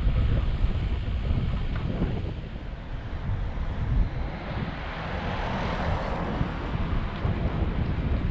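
Wind buffeting the microphone of a camera on a moving bicycle, a steady low rumble. About five seconds in, a rushing noise swells and fades as an oncoming car passes.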